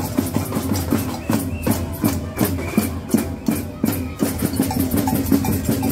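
Street festival band music with drums and hand percussion, many quick hits over a loud, dense mix.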